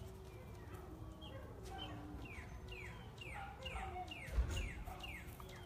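Animal calls: a run of short chirps, each falling in pitch, about two a second through the second half, over scattered lower calls. One low thump comes about four seconds in.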